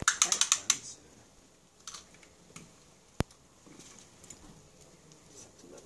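Quick run of about seven clicks as a cloth tape measure is pulled out of its small round plastic case, then a single sharp click about three seconds in and faint rustling of the tape as it is wrapped around the ankle.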